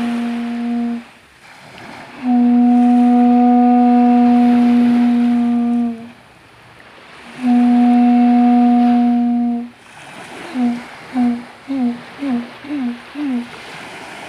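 Conch shell trumpet blown in loud, steady one-note blasts: one ends about a second in, then comes a long blast of nearly four seconds and another of about two, followed near the end by six short toots in quick succession, each with a brief bend in pitch. Gentle surf washes in the pauses.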